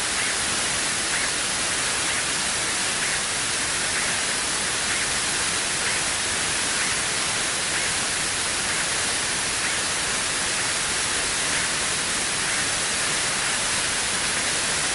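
Steady in-flight cabin noise of a Cessna P210 Silver Eagle with its Rolls-Royce turboprop running: an even, unbroken hiss.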